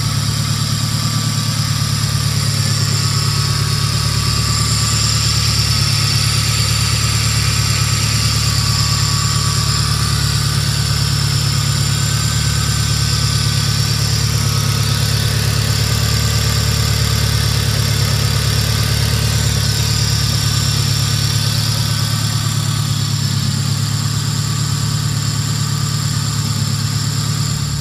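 Hyundai Genesis Coupe 2.0T's turbocharged four-cylinder engine idling steadily, with no revving.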